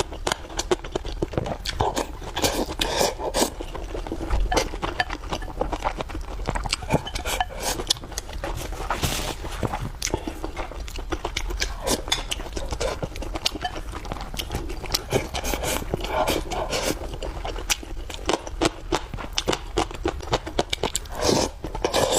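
Close-miked eating sounds: a person chewing, with dense, irregular wet clicks and smacks of the mouth and food.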